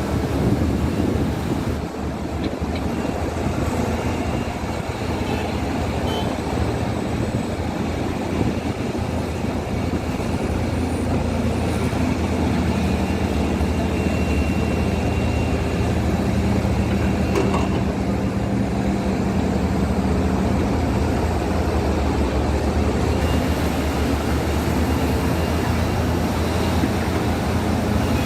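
Caterpillar excavator's diesel engine running steadily under work, a deep hum over a dense rumble that grows a little louder about ten seconds in.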